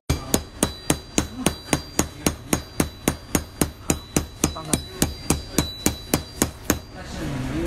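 A small hammer tapping a precision screwdriver held against a metal plate, in an even run of sharp metallic taps about three a second, each with a short ring, to knock out a screw. The taps stop near the end.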